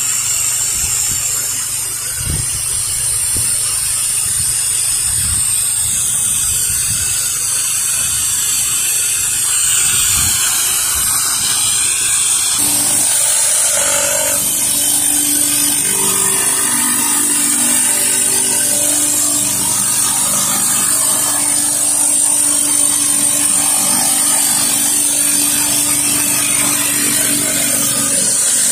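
Pressure-washing equipment running with water spraying in a steady hiss over the machine's engine and pump hum. About halfway through, a steadier, lower hum sets in.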